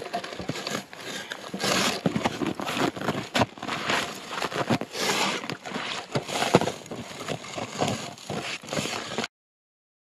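Irregular crunching of snow and scraping and rustling against branches as a trapped beaver is hauled up out of a hole in the snow and ice. The sound cuts off suddenly about nine seconds in.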